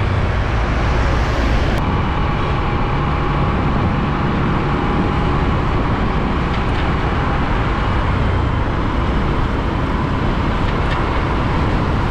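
Container truck with a loaded semi-trailer driving past on a highway, its diesel engine and many tyres making a steady rumble along with the road noise of passing traffic.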